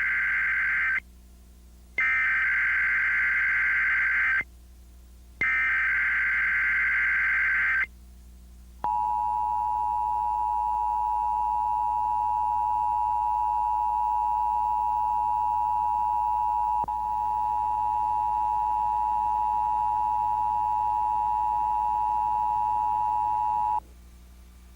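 Emergency Alert System required monthly test: three bursts of SAME header data, about two and a half seconds each with short gaps, the first already under way, then after a short pause the steady two-tone EAS attention signal held for about fifteen seconds, stopping shortly before the end.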